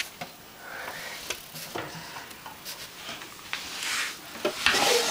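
Handling noise: rustling and scattered small clicks as a hand strokes a cat's fur and the camera is moved about, with a louder stretch of rubbing noise near the end.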